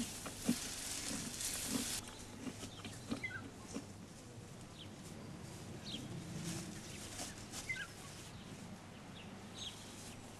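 Faint outdoor sound of elephants feeding on leafy branches: soft rustling and a few small snaps, with scattered short bird chirps.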